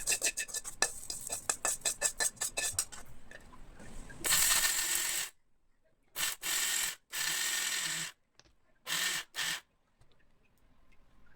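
A fast run of sharp clicks and clatters, then a kitchen mixer grinder run in about five short pulses, each a fraction of a second to a second long, with near silence between them. This is the usual way of grinding a thick chutney.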